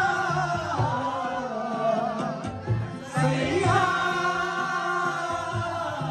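A man singing into a microphone over a harmonium, holding long, bending notes, with a steady drum beat underneath. The voice drops out for about a second a little past two seconds in, then comes back.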